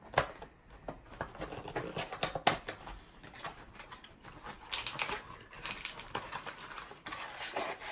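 Cardboard Topps baseball card box being torn open by hand, with its flap and paper packaging ripping and crinkling. A fast, irregular run of small crackles and clicks, with a sharper snap right at the start and another about two and a half seconds in.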